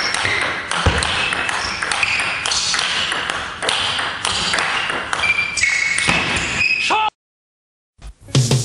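Busy indoor background noise full of short clinks and high pings, with a brief clatter. It cuts off suddenly about seven seconds in, and music starts near the end.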